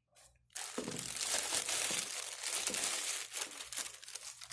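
Clear plastic bag crinkling as a car radio head unit is pulled out of it, starting about a second in.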